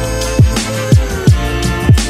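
Electronic music with a steady kick-drum beat of about two beats a second over sustained synth tones.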